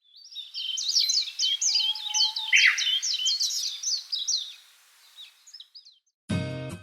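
Songbirds singing: a dense run of quick, high chirps and trills that fades out after about five seconds. Chiming music comes in just before the end.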